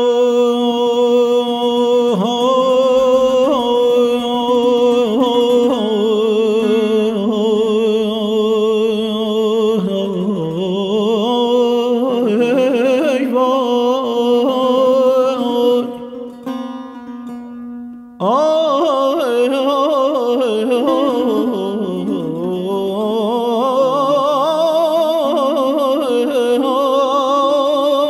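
Persian classical singing (avaz) in Afshari: a male voice holding long notes with quick wavering ornaments over a setar. The voice breaks off briefly a little past halfway, then comes back in with a rising swoop.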